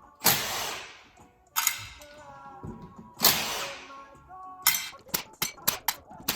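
Tools working on a motorcycle engine case: three loud hits about a second and a half apart, each ringing away, then a quick run of sharp taps near the end. Faint background music runs underneath.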